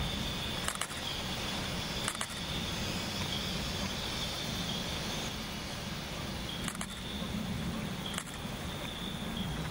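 Steady outdoor background noise: a low hum under a thin, steady high whine, with four brief faint clicks.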